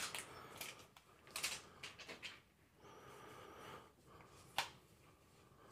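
Faint unboxing handling: packaging being taken off a wireless charger, with soft rustles and a few light clicks and taps, the sharpest about four and a half seconds in.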